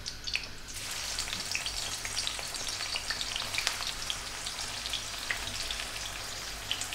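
Sliced onions dropped into hot oil in a kadhai: the oil starts sizzling about a second in and keeps frying steadily, with many small crackles and pops.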